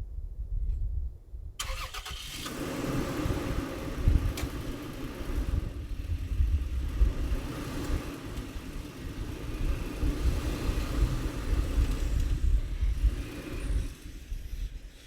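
Truck engine running steadily. It comes in suddenly about one and a half seconds in with a brief clatter and drops away near the end; before it, only low rumble.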